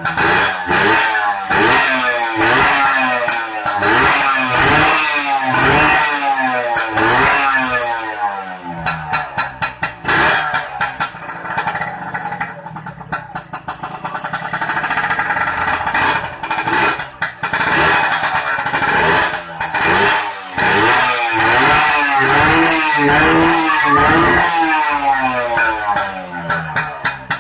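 An engine revved over and over through an aftermarket RF Pipes exhaust with a catalyzer, its note rising and falling in quick blips. There is a quieter, steadier stretch at idle in the middle, then more revving near the end.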